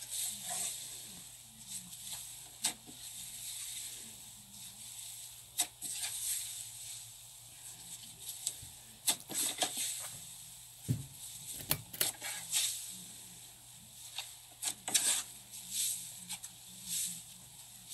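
Slime squeezed and pressed by fingers, making irregular sticky clicks and crackly pops over a faint steady hiss.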